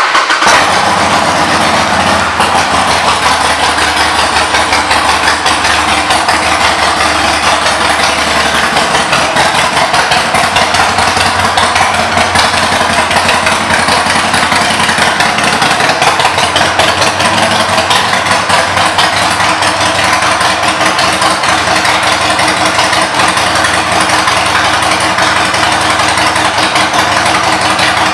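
Harley-Davidson Sportster 1200 Custom's air-cooled V-twin running steadily at idle through aftermarket Vance & Hines exhaust pipes, loud and even throughout.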